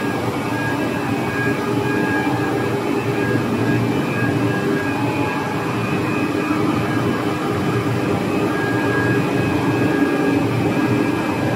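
Steady drone and whir of a running 2-metre, five-extruder cast stretch film line, with a few faint steady tones on top of the noise.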